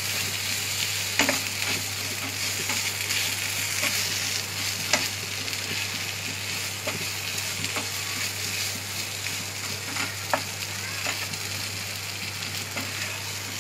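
Cubed boiled potatoes sizzling in hot oil in a non-stick frying pan while a spatula stirs them. A steady high hiss runs throughout, broken by a few sharp taps of the spatula against the pan.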